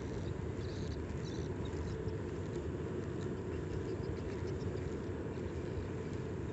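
Steady low rumbling background noise, with no distinct event standing out.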